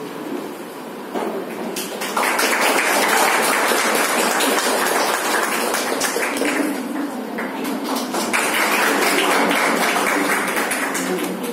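A small group of people clapping their hands, swelling to full applause about two seconds in and keeping up steadily.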